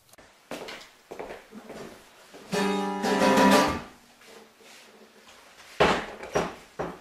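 Acoustic guitar strings sounding a loud chord that rings for about a second, a few seconds in, as the guitar is handled. Scattered knocks and thumps come before and after it, the sharpest near the end.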